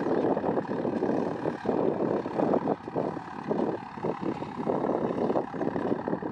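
Ford 6610 tractor's four-cylinder diesel engine running steadily while plowing, with an uneven fluttering roughness in its sound.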